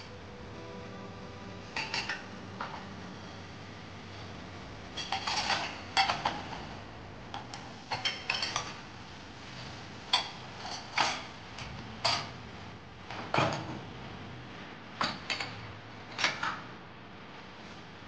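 Cups, glasses and dishes clinking and knocking against each other and the wire rack as they are set into a dishwasher, a string of separate sharp clinks at irregular intervals.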